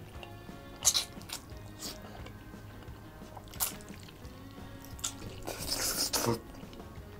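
Eating pasta carbonara mukbang-style: wet chewing and short lip smacks, then one long slurp of noodles about five and a half seconds in, the loudest sound.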